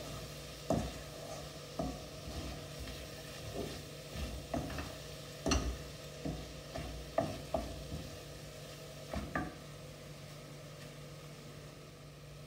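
Wooden spatula stirring thick onion-tomato masala in a stainless steel kadai, knocking and scraping against the pan about ten times at an uneven pace, over the low sizzle of the masala frying with its ground spices until the raw smell goes. The knocks stop about ten seconds in, leaving only the sizzle.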